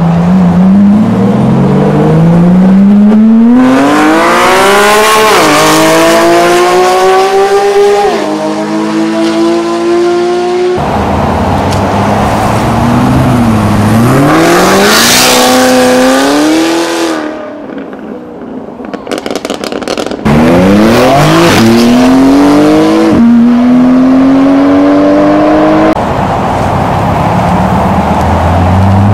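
High-performance sports cars, among them a Corvette and a Dodge Viper, accelerating hard away one after another. Each engine rises steeply in pitch, drops back at each upshift and climbs again, several pulls in a row.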